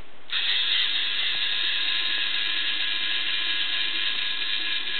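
LEGO Mindstorms NXT servo motors whirring steadily through their plastic gears as the robotic arm swings, starting about a third of a second in.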